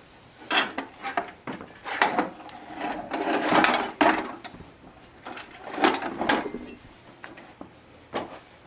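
Sheet-metal tiller transmission and frame parts being handled and worked loose: several sharp metal knocks and clanks, with a longer scraping rub about three to four seconds in and more knocks around six seconds.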